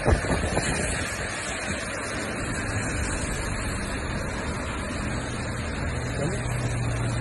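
Steady wash of noise from rain and traffic tyres on a wet road. A vehicle's low engine hum joins about five seconds in.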